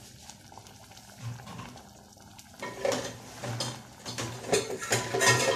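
Thick potato curry boiling in an aluminium pot on a gas flame, with bubbles popping and plopping irregularly. The plopping is sparse at first, then comes thicker and louder in the second half.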